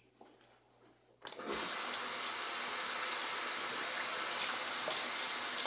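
Bathroom sink tap turned on about a second in, then water running steadily into the basin, as used to rinse lather and stubble out of a safety razor between passes.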